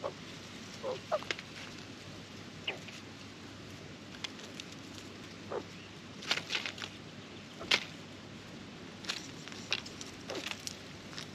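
Australian magpies foraging on dry straw and leaf litter: scattered short rustles and pecking clicks, bunched around six to eight seconds in and again near ten seconds, over a faint steady hiss.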